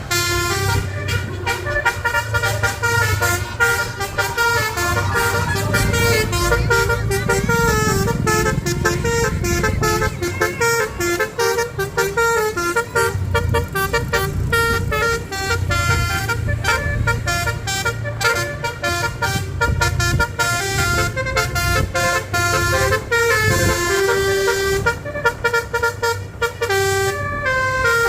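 A bus's basuri multi-tone air horn (telolet) playing a running melody, note after note, over the low rumble of the engine.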